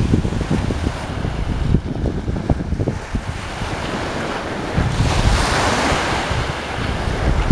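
Sea surf with wind buffeting the microphone in heavy low gusts; a wave washes in with a rising hiss about five seconds in.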